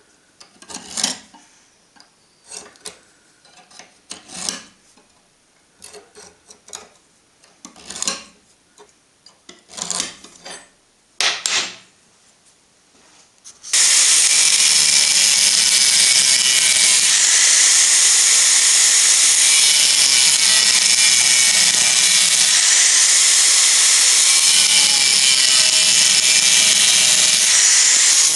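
A steel scriber scratching marking lines onto a steel bar in short separate strokes, about nine of them. About 14 seconds in, an abrasive cut-off disc on a power tool starts cutting slots across the steel bar, a loud steady grinding that continues.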